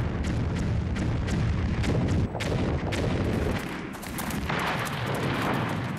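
Battle soundscape of gunfire and artillery: many sharp shots over a continuous low rumble of booms. The firing eases briefly a little past halfway, then picks up again.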